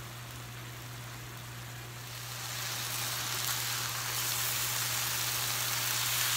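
Diced chicken sizzling in a nonstick skillet with the heat turned up, its liquid cooking off so the pieces start to brown. The sizzle grows louder about two seconds in as the pieces are stirred with a spatula.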